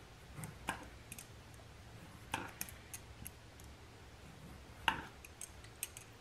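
Paring knife peeling a pear held in the hand: faint scrapes and small clicks of the blade against the fruit, with a few sharper ticks, the loudest about two and a half and five seconds in.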